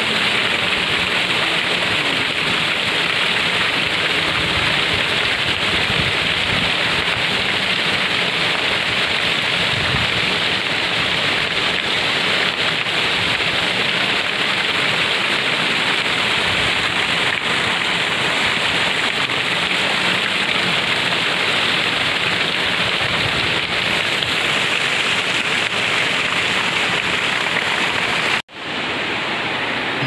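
Steady rushing of a large waterfall pouring down a rock face onto boulders, in full flow after heavy rain. The sound cuts out for an instant near the end, then resumes.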